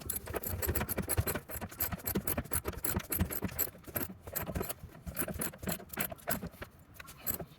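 Hand ratchet wrench clicking in quick, uneven runs of strokes as a seatbelt mounting bolt is tightened by hand.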